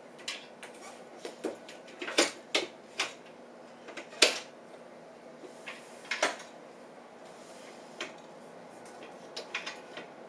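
Folding treadmill being folded up and handled: a string of sharp knocks and clanks from its metal frame, the loudest about four seconds in.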